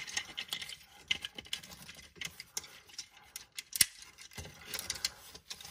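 Small plastic clicks and taps from handling a G1 Bruticus transformer toy as the chest plate is fitted onto the torso, with one sharper snap about two-thirds of the way in.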